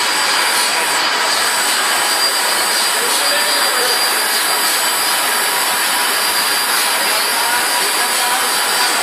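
Plastic blow moulding machine running: a loud, steady machine hiss with a few faint, steady high whines.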